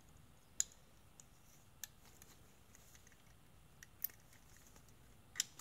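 A few sharp, separate metallic clicks and taps from small hardware and a tool being handled as the nut on a trunk-support pivot bolt is backed off to set slight drag. The loudest click comes near the end.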